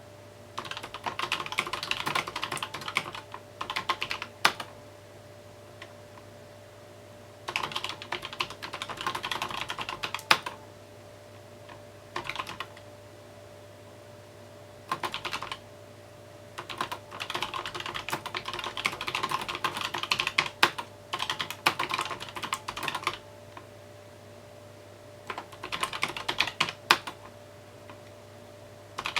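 Typing on a mechanical keyboard in runs of rapid keystrokes a few seconds long, broken by pauses of one to three seconds, over a faint steady hum.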